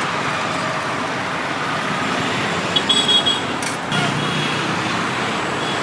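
Steady roadside traffic noise, with a few ringing clinks of stainless-steel serving pots and ladles about three seconds in.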